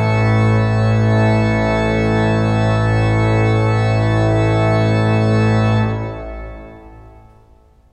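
Harrison and Harrison cathedral pipe organ sounding a held closing chord over a deep pedal note. The chord is released about six seconds in and rings on in the cathedral's long reverberation as it dies away.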